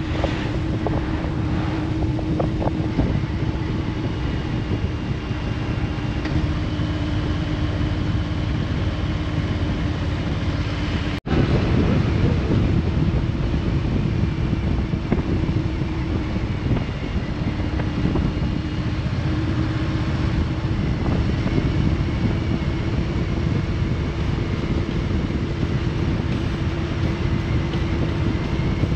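2020 Harley-Davidson Road Glide Limited's V-twin engine running at a steady cruise, with wind rushing over the microphone. The sound drops out for an instant about eleven seconds in, at an edit, then carries on the same.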